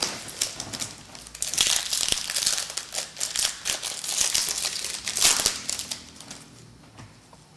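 A trading card pack wrapper being torn open and crumpled by hand, in a burst of crackling that lasts a few seconds and dies away near the end.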